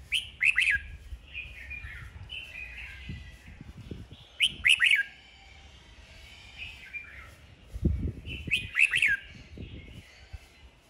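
Red-whiskered bulbul singing its competitive song: three loud, short, bright phrases a few seconds apart, with softer chattering between them. A few low thuds are heard under the song.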